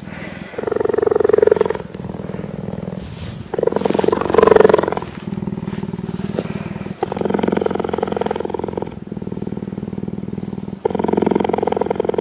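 An animal's low, rasping vocal sound close by, repeated in four long pulses of about a second and a half each, with quieter sound of the same kind between them.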